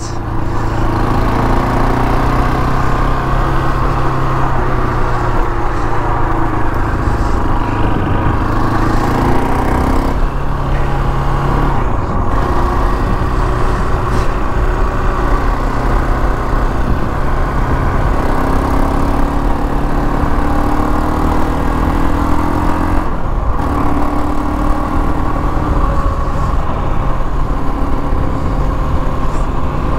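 KTM 525 XC quad's single-cylinder four-stroke engine running under way, its note rising and falling with throttle, with a few brief drops about ten, twelve and twenty-three seconds in.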